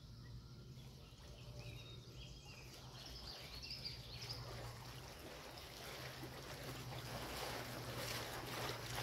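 River water sloshing and splashing around a person's legs as he wades through it, growing steadily louder over the last few seconds.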